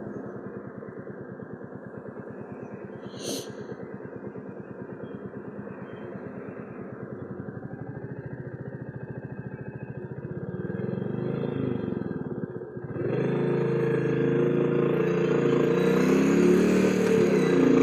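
Royal Enfield Classic 350's single-cylinder engine running at low revs with even firing pulses, with one short sharp click about three seconds in. From about two-thirds of the way through, the revs rise, briefly drop at a gear change, and the bike accelerates, the engine louder and wind rushing over the microphone.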